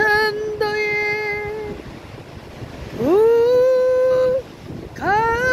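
A woman singing unaccompanied, holding three long notes, the second and third scooping up into pitch, with a faint wash of surf behind.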